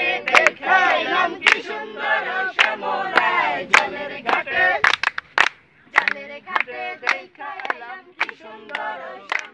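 Several male voices singing together in an informal group, with sharp hand claps keeping the beat about once a second.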